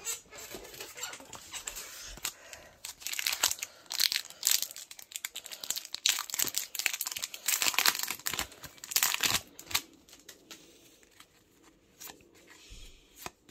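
Foil-lined trading-card booster pack being torn open and crinkled by hand, a dense run of tearing and crinkling for most of the first ten seconds. Near the end come quieter scattered clicks from the cards being handled.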